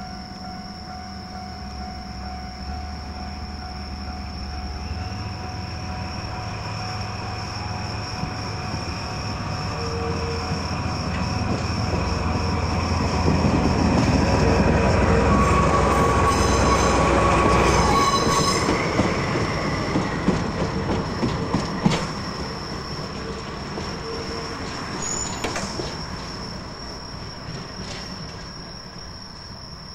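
Train rolling past on jointed track: a rumble that builds to its loudest about halfway through, with a brief wheel squeal and a run of rail-joint clicks, then fades away.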